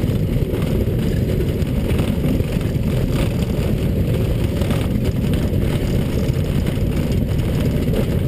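Zlin Z-126's Walter Minor four-cylinder piston engine and propeller running steadily, heard from the cockpit as an even, muffled drone.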